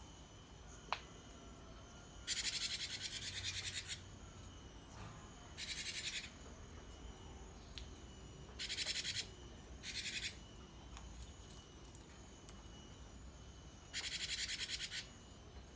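Caged gelatik batu (cinereous tit) calling in five fast, buzzing rattled bursts, each from half a second to nearly two seconds long, with pauses between them. A single sharp click comes about a second in.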